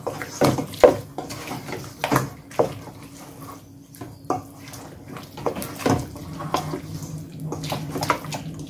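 Fried chicken pieces being stirred and tossed in barbecue sauce in a stainless steel bowl with a spoon: wet squelching with irregular knocks of the spoon against the metal bowl.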